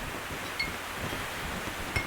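Wind and waves in a steady wash of noise, a sailing-ship ambience of sails and sea. A few brief clicks and short high squeaks come through about half a second in and again near the end, the sharpest a click at the very end.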